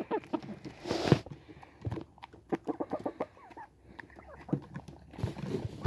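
Chickens clucking, many short calls scattered throughout, with two brief bursts of noise about a second in and near the end.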